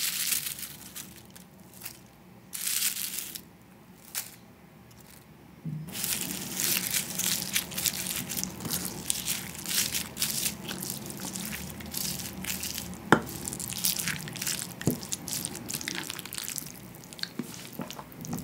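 Dried seasoned laver flakes crinkling as they are dropped into a bowl, in a few short bursts. Then, from about six seconds in, a spoon mixing rice, butter and stew together in a ceramic bowl: wet stirring and scraping, with two sharp clinks of the spoon against the bowl.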